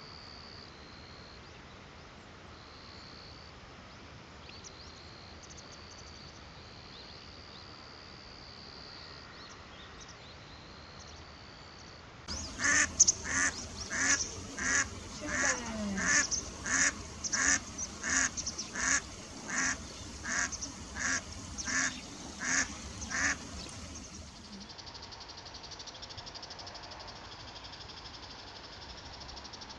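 Eastern spot-billed duck quacking loudly in a long, even series of about seventeen quacks, starting some twelve seconds in and lasting about eleven seconds.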